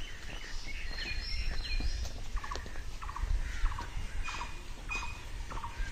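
Several birds calling: short repeated chirps and a few rising and falling whistles over a low rumble.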